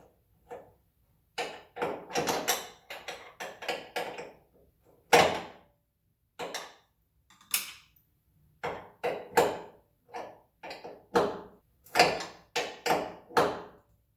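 Irregular clicks and knocks of hand tools and hood-strut hardware being worked, as a fitting is tightened and a retaining clip is set. The knocks come singly and in quick clusters, with short silences between them.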